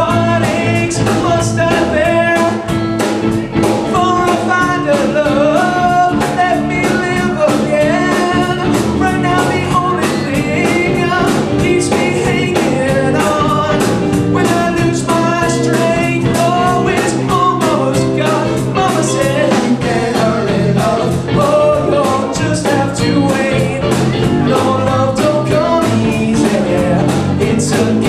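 A live band playing: a man singing lead over electric guitar, electric bass and a drum kit keeping a steady beat.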